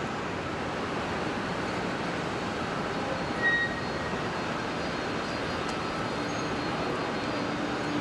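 Boeing 737 jet engines on final approach, a steady rushing sound with a low whine coming in about six seconds in as the airliner nears touchdown. A brief high chirp sounds about halfway through.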